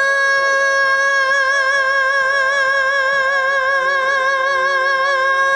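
A woman's singing voice holding one long, high note with vibrato: the drawn-out "no" at the end of the chorus. Backing music plays quietly beneath it.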